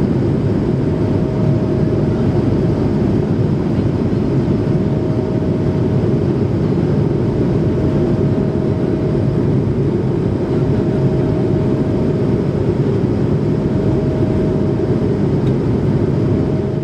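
Airbus A220-300 in flight, heard from inside the passenger cabin: a steady roar of its Pratt & Whitney PW1500G geared turbofans and airflow, with one thin steady whine held over it.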